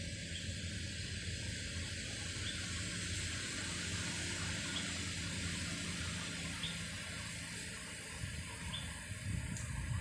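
Forest ambience: a steady high hiss, with a faint short chirp repeating about every two seconds over a low hum.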